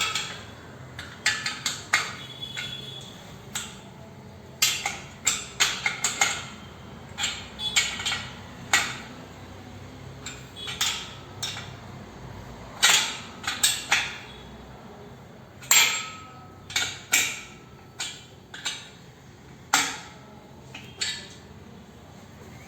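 Steel power-rack parts, bolts and tools being handled: irregular sharp metallic clinks and knocks, some ringing briefly.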